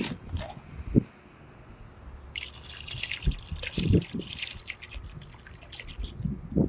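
Liquid filter cleaner poured from a bottle into a bucket of water holding a pool cartridge filter, splashing and trickling for about four seconds from about two seconds in. Before it come a couple of sharp knocks as the bottle is opened.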